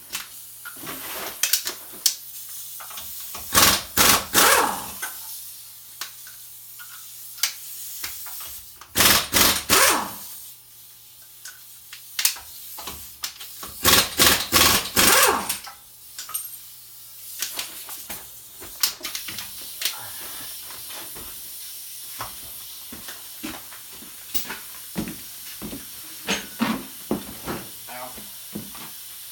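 Impact wrench on the truck's wheel lug nuts, run in three short bursts of a few pulses each, with lighter metallic clicks and knocks near the end.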